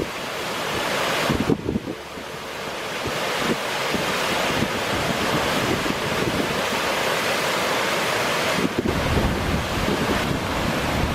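Surf breaking and washing in continuously, swelling in waves, with gusty wind buffeting the microphone.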